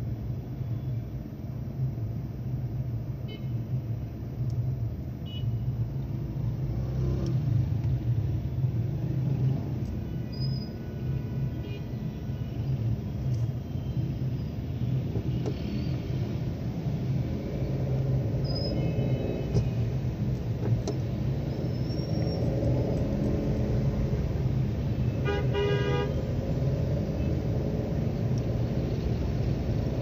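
Slow, congested city traffic: a steady low rumble of vehicle engines, with scattered short car horn toots and one longer honk of about a second near the end.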